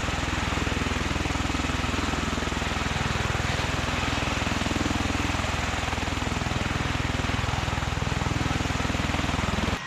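MV-22 Osprey tiltrotor hovering: loud, steady rotor and turbine noise with a fast, even pulsing, stopping abruptly near the end.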